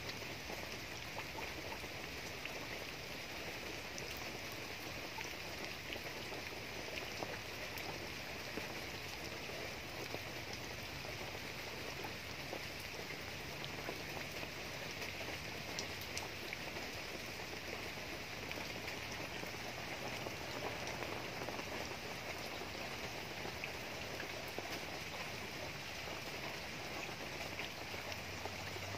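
Steady rain falling on garden foliage and wet ground, with occasional single drops ticking out of the hiss.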